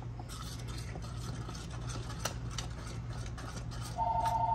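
A spoon scraping thick puree out of a plastic blender jar and stirring it into a pan, faint with a few light clicks, over a steady low hum. A steady two-note tone comes in near the end.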